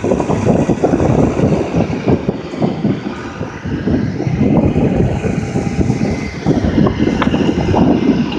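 Massey Ferguson tractor's diesel engine running as it works over a silage clamp, heavily buffeted by wind on the microphone, which turns it into an uneven, gusty rumble.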